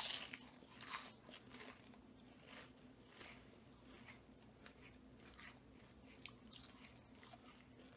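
Faint crunching and chewing of Lay's potato chips in the mouth. The crisp crackles are dense for the first few seconds, then thin to occasional small ones.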